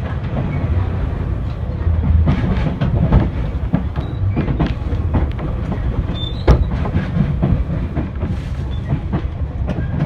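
JR Shikoku 2000 series diesel express train heard from inside the car while running: a steady low rumble with wheels clacking over rail joints, one sharper clack about six and a half seconds in.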